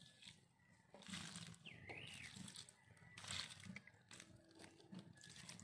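Faint splashing and trickling of water poured from a plastic jug onto dry soil at the base of a coconut seedling, with a short rising-and-falling chirp about two seconds in.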